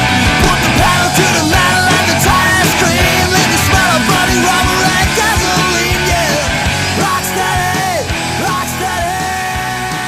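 Rock music soundtrack, an instrumental stretch with held and bending notes over a steady beat, slowly getting quieter over the last few seconds.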